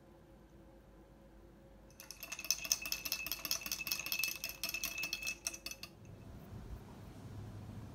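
A spoon stirring quickly in a drinking glass, with rapid clinking against the glass that starts about two seconds in and stops about four seconds later.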